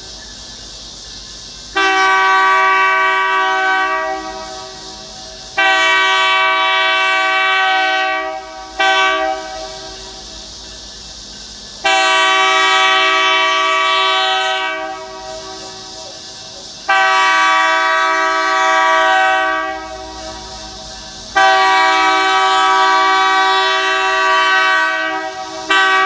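Diesel locomotive air horn sounding the grade-crossing signal: long, long, short, long, then starting the pattern again with long, long, short near the end. Each long blast starts abruptly and lasts about three seconds.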